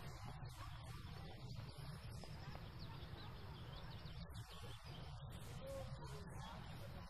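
Faint bird chirps over a low steady hum of room tone.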